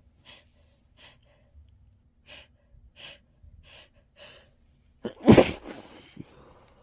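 A person's breath catching in a run of short, quick gasps, building up to a single loud sneeze into a tissue about five seconds in that trails off over about a second.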